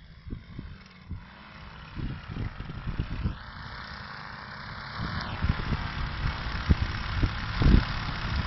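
Wind buffeting the microphone in uneven gusts, over a steady engine-like hum and hiss that grows louder about halfway through.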